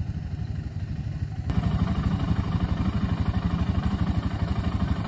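2001 BMW F 650 GS's 652 cc single-cylinder four-stroke engine running with an even, rapid pulse, getting suddenly louder about one and a half seconds in.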